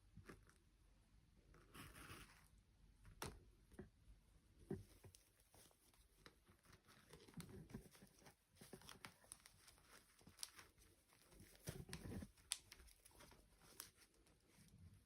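Faint handling noises: soft crinkling and tearing rustles with scattered small clicks and taps, typical of toy packaging and doll parts being handled.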